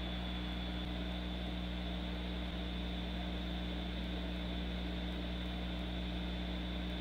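Hot air rework station blowing a steady stream of hot air through a wide nozzle onto a MOSFET's solder joints, its blower running with a constant rush and a faint high whine. The air is heating old solder to its melting point so the MOSFET can be lifted off the board.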